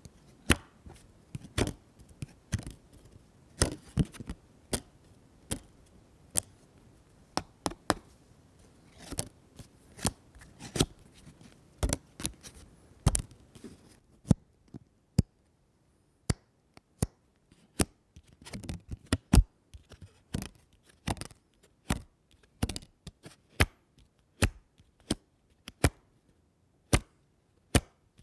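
A string of paper sound effects: short, sharp paper rips and snaps one after another at uneven intervals, with a few slightly longer tearing rustles among them.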